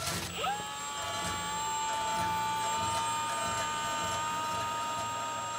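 Milwaukee cordless electric leaf blower spinning up with a quick rising whine about half a second in, then running at a steady high pitch. It is blowing air into the bottom of a barrel grill's charcoal fire to raise the heat.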